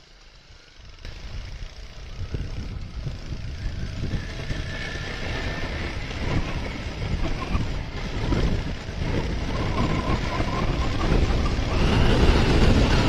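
Wind rushing over the microphone of a moving motorcycle, with the bike's running underneath, growing steadily louder from about a second in as the bike picks up speed.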